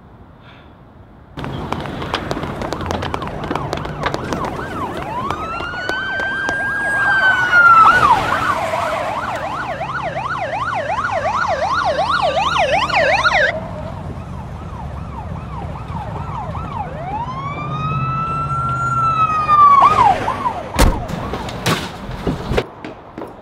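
Police siren cutting in about a second in. It sounds one long rising-and-falling wail, switches to a fast yelp for about five seconds, then wails again. Near the end comes a heavy thump followed by a few sharper knocks.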